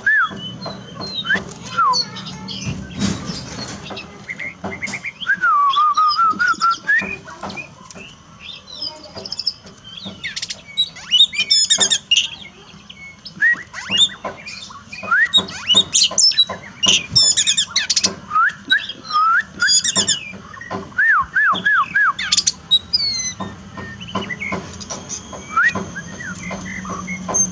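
Songbird song: a continuous, varied run of rising and falling whistles, quick chirps and rattling notes, with repeated arched whistles near the end.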